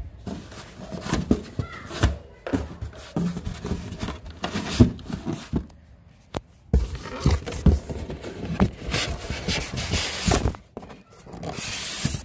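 Cardboard box and white foam packing being handled: irregular rubbing and scraping with scattered knocks and thumps, pausing briefly about halfway.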